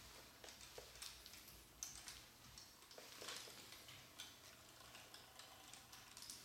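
Near silence with faint, irregular small clicks and taps.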